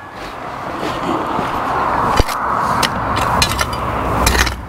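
A car driving past, its rushing tyre-and-engine noise building over about two seconds, holding, then falling away near the end. Scattered light clicks and scrapes from a garden tool working loose soil and stones.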